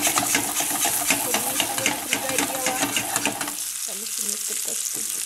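Chicken meatballs sizzling as they fry in a pan, with a clatter of stirring over the first three and a half seconds, after which only the steady sizzle remains.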